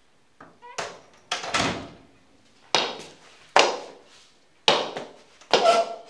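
A metal mortar being pounded with its pestle: about seven heavy strokes at uneven spacing, roughly one a second, each ringing on briefly.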